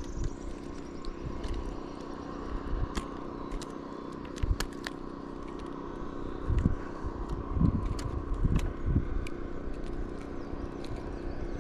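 A steady motor hum under low gusts of wind buffeting the microphone, with scattered light clicks as a caught crappie is unhooked by hand.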